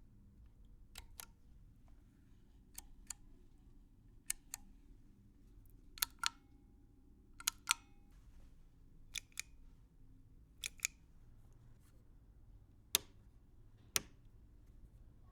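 Switches flipped on and off: sharp mechanical clicks, mostly in quick on-off pairs about a quarter second apart, repeating every second or two, with two single clicks near the end.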